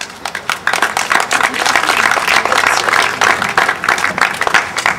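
Audience applauding: a few claps at first, quickly filling into dense applause, then thinning to scattered claps near the end.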